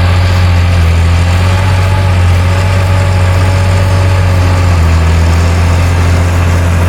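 John Deere 8100 tractor's 8.1-litre six-cylinder diesel engine running loud and steady, a deep even hum with a faint whine above it.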